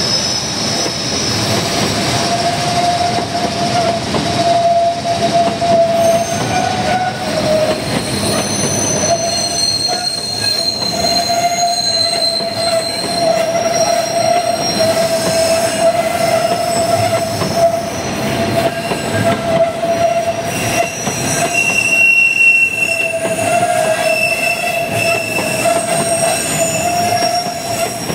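Freight wagons rolling past at close range, steel wheels rumbling on the rail with a steady high squeal from the wheel flanges grinding through the curve. Shorter, higher squeals come and go over it.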